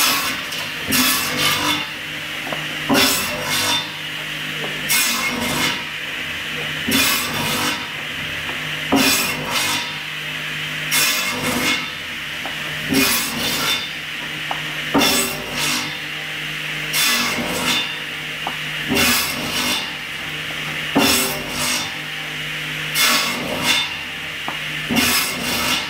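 A carousel-type timber cross-cut machine running: a steady motor hum and saw whine, with the rotating drum carrying beams through the saws so that a short pair of loud sawing bursts comes about every two seconds as blocks are cut off.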